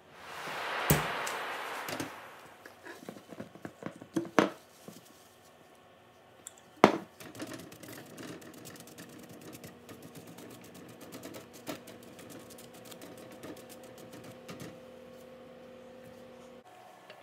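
Glass and metal loaf pans being taken out of the oven and handled on a wire cooling rack: a rushing sound at first, a few sharp knocks and thunks of pans set against the racks, the loudest about seven seconds in, then a run of light taps and clicks over a faint steady hum.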